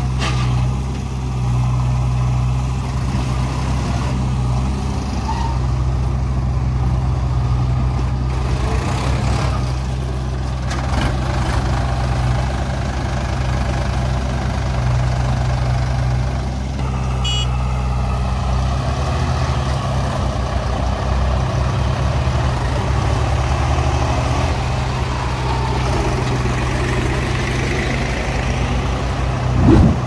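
Diesel engines of a farm tractor and a backhoe loader running steadily with a low, even hum.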